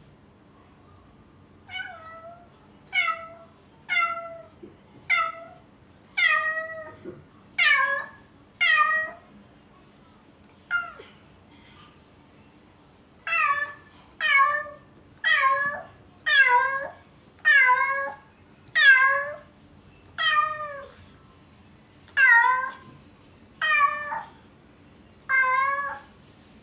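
A cat meowing over and over, about eighteen loud calls roughly one a second with a short pause about halfway, each call dropping in pitch at its end. It is a lonely cat calling for its absent owners.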